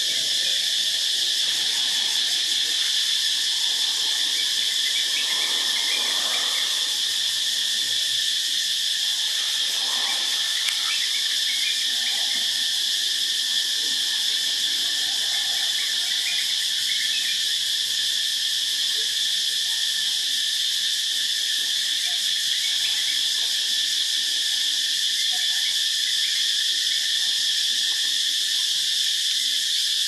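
Loud chorus of cicadas, a steady high-pitched buzz that never lets up.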